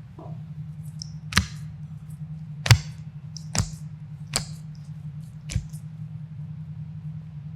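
Five sharp cracks spread over about four seconds, the second the loudest, over a steady low hum: spinal joints popping during a chiropractic adjustment.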